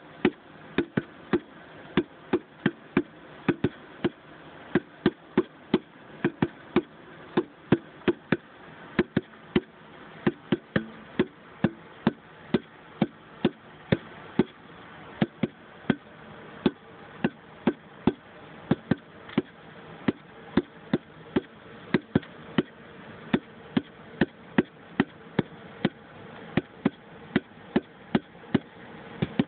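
Heartbeat thumps in a steady rhythm, about two a second and often in close pairs like a lub-dub, over a faint steady buzz.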